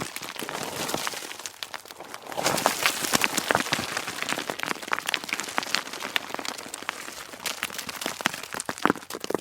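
Rocks and loose stones tumbling and clattering down a rocky slope: a dense run of knocks and rattles that thins out about a second and a half in, then picks up again louder, with a few sharper impacts near the end.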